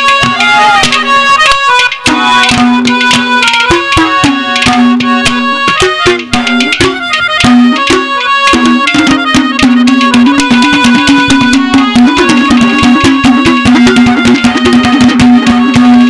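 Instrumental interlude of live Haryanvi ragni folk music: fast hand-drum strokes under a steadily held low note and a melody line, played without singing.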